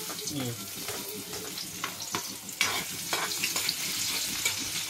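Food sizzling in a frying pan while being stirred, with short clicks of the utensil against the pan; the sizzle gets louder about two and a half seconds in.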